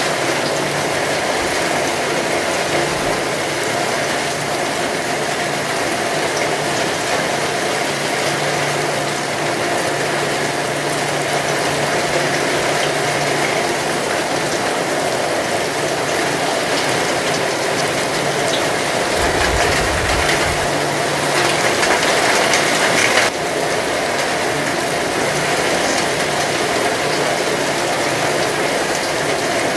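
Heavy rain falling steadily, a dense even patter. A brief low rumble comes in around 20 seconds in, and the rain's texture changes abruptly a few seconds later.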